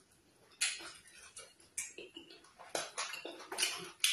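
Close-miked chewing and wet lip-smacking of soft, sticky starch and black soup eaten by hand: a string of irregular moist clicks and smacks after a quiet first half second.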